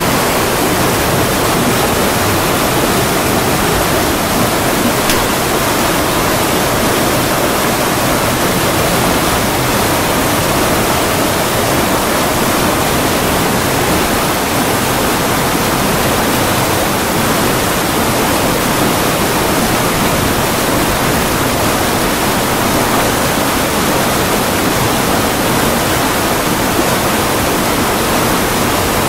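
Water pouring over the gates of a weir and churning white into the pool below: a loud, steady rush.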